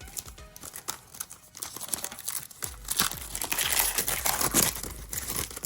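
Foil wrapper of a trading card pack crinkling and tearing as it is ripped open, a dense crackling that gets louder about three seconds in.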